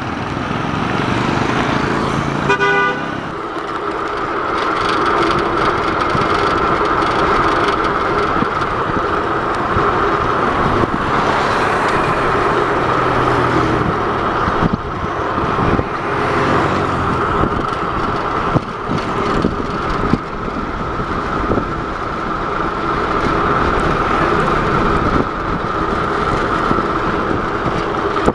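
Wind rushing over the microphone on a moving bicycle, a steady noisy rush, with a short vehicle horn toot about two and a half seconds in.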